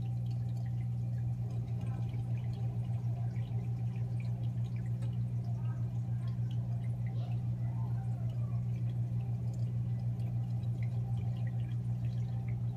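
Aquarium equipment humming steadily at a low pitch, with water trickling and dripping in the tank.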